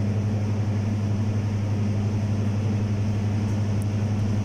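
A steady low hum, one deep tone with a second an octave above, unchanging throughout, as from a running electric motor or appliance.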